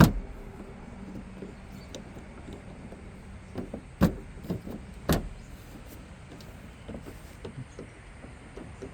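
Scattered sharp clicks and knocks of hand work on a Nissan Navara D40 door's handle mechanism. The loudest come at the very start and about four and five seconds in.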